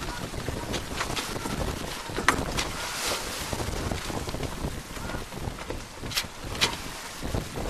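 Wind buffeting the microphone over the wash of choppy water along the hull of a Maxi 95 sailboat under sail. A few sharp clicks cut through, one about two seconds in and two close together near the end.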